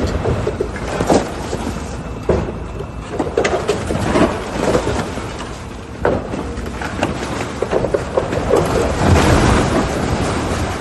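Building demolition: repeated crashes and knocks of breaking and falling debris over a continuous rumble, with the heaviest crash and rumble about nine seconds in.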